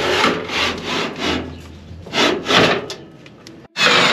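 Oven's stainless-steel bottom drawer scraping and rubbing on its runners as it is worked open, in a run of short strokes. Near the end, after a brief gap, a sudden loud burst of noise.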